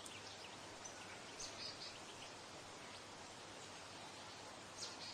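Faint outdoor ambience of a summer meadow: a steady low hiss with a few short, high bird chirps scattered through it, a cluster about a second and a half in and another near the end.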